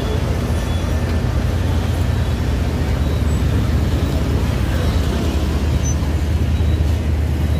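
Steady low rumble of a D19E diesel-electric locomotive's engine as it rolls away along the track.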